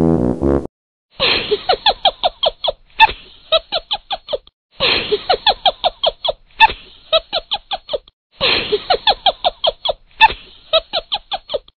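A cat's rapid run of short, high squeaky cries, each squeak a fraction of a second. The same run of about a dozen squeaks is heard three times, each cut off abruptly.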